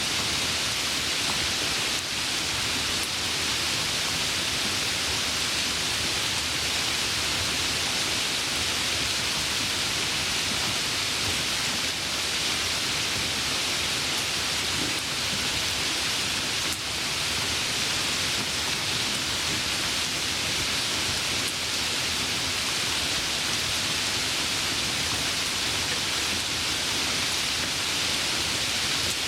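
Light rain falling steadily, an even hiss of many small drops with no thunder or gusts.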